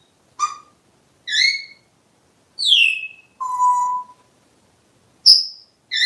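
African grey parrot giving a string of about five short whistles and chirps, one a falling whistle and one a steadier, lower whistled tone.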